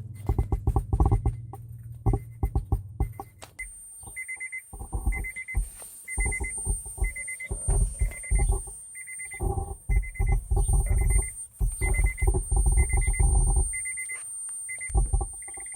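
Subwoofer crackling: rapid irregular pops and clicks with low bass thumps, the fault its owner is trying to cure. From about four seconds in, a high electronic beep repeats about once a second over it.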